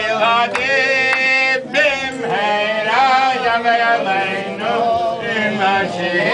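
Male singing: a slow chanted melody with long held notes that bend in pitch.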